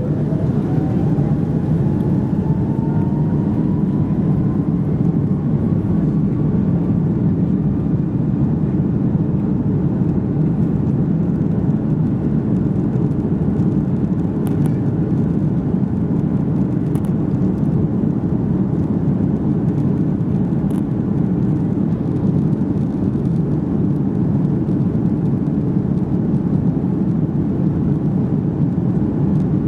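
Airbus A330-200's Rolls-Royce Trent 700 jet engines heard inside the passenger cabin: a loud, steady rumble, with a whine that rises in pitch over the first several seconds as the engines spool up.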